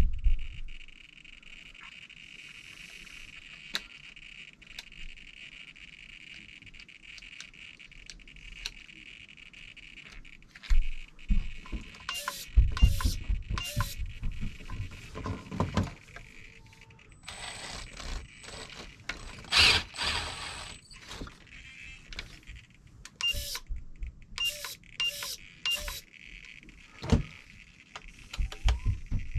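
A small RC micro servo whirring in short bursts as it is cycled, mixed with clicks, knocks and rustling as the truck's parts are handled and worked on.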